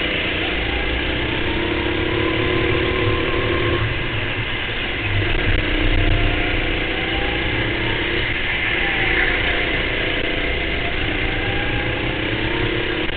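Go-kart engine running hard at racing speed, its pitch rising and falling as the throttle comes on and off through the corners, over a steady low rumble.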